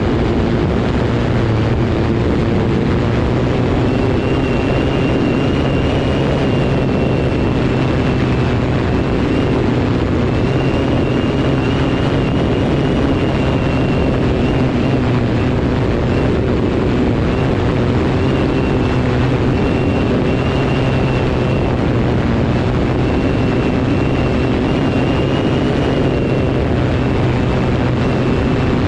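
Helicopter engine and rotor noise heard from on board, a loud steady drone with a faint high whine that comes and goes from about four seconds in.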